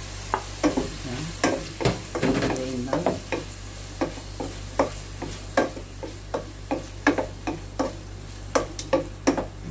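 Sliced sausage tipped from a plate into a hot oiled pan and stirred with a wooden spatula: sharp knocks of the spatula against the pan about twice a second, over a light sizzle of frying. A busier clatter of pieces landing comes in the first few seconds.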